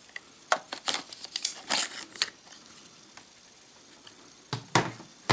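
Hitachi 2.5-inch laptop hard drive in its aluminum sled sliding out of a MacBook's drive bay: a cluster of short scrapes and clicks of metal and plastic handling for about the first two seconds, then a few sharp clicks near the end.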